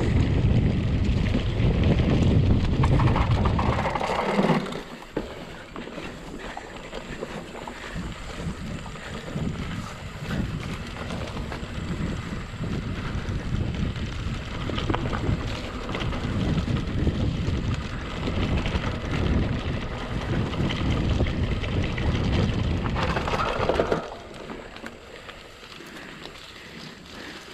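Wind rushing over the microphone of a camera carried on a mountain bike riding a trail, with a low rumble from the ride. Loudest for the first few seconds, steadier in the middle, and it drops off a few seconds before the end.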